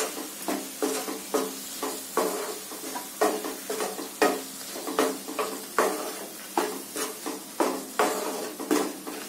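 A spatula stirring and scraping an onion-tomato masala with dry spices as it fries in oil in a nonstick kadai, in regular strokes about twice a second over a steady sizzle.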